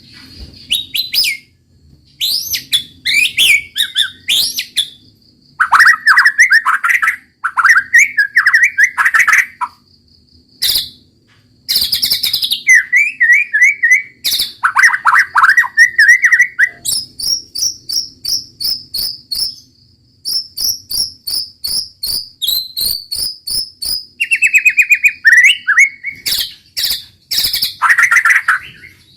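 White-rumped shama singing loudly: varied whistled phrases and fast runs of repeated notes, in bouts broken by short pauses.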